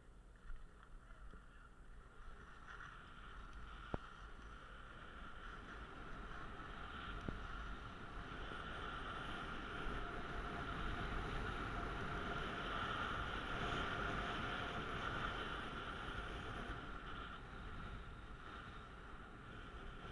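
Skis sliding and scraping over the packed snow of a piste during a downhill run. The hiss grows louder as speed builds, is loudest around the middle and eases a little near the end. A single sharp click comes about four seconds in.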